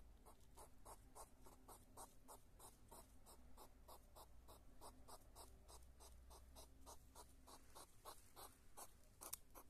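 Hedgehogs huffing in a fast, steady rhythm of short, faint puffs, about five a second, as two of them meet nose to nose. One sharper click comes near the end.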